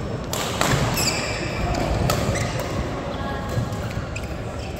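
Badminton rally: several sharp racket strikes on the shuttlecock at irregular intervals, with players' shoes squeaking and thudding on the court floor, one short squeal about a second in.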